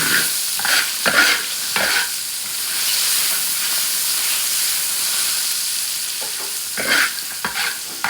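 Food sizzling in hot oil in a pan as it is stir-fried, with a steady hiss and a few scraping strokes of the spatula in the first couple of seconds and again near the end.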